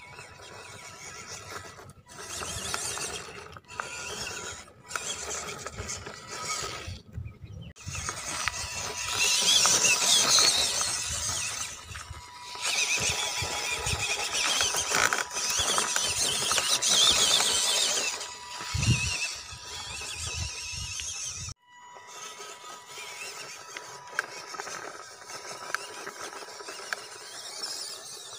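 The small 260 electric motor and gearbox of an RC scale crawler whining as it drives, coming and going in bursts with short pauses as the throttle is worked; loudest around the middle.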